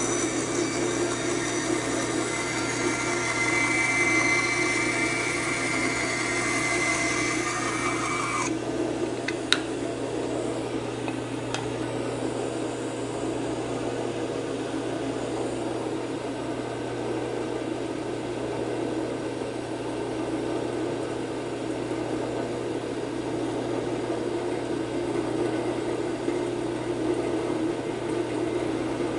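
Band saw with a 3/16-inch blade running steadily while cutting spalted wood. A high whine from the cut in the first eight seconds or so cuts off suddenly, followed by a couple of light clicks and the saw's steady hum.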